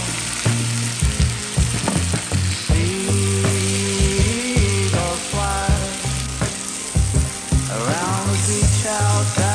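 Food sizzling in a frying pan, an even hiss, under background music with steady bass notes, a regular beat and a gliding melody.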